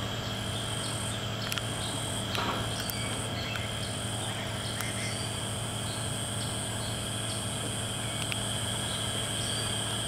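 Forest insect chorus: a steady high buzzing tone, with a higher buzz that cuts out and returns about once a second, over a low steady hum.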